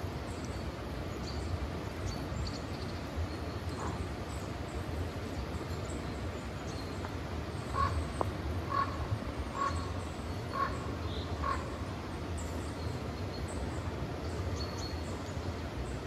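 Outdoor ambience: a steady low background hiss with faint, high bird chirps scattered throughout. About halfway in, an animal gives five short calls in a row, a little under a second apart.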